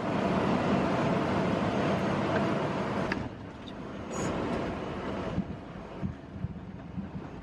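Embraer 175 jet on its landing roll, heard in the cockpit: a loud, even rushing of engine and runway noise that drops off sharply about three seconds in and eases again after five seconds as the aircraft slows, with a few light thumps.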